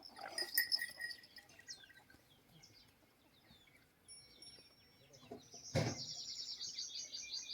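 Small birds chirping and whistling, with a fast run of high chirps in the last two seconds. A single sharp knock sounds just before that run.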